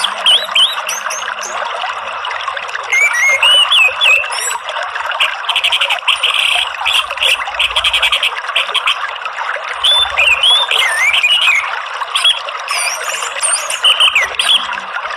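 Orange-headed thrush singing over steady running water: short whistled phrases that swoop up and down, with a fast rattling trill midway.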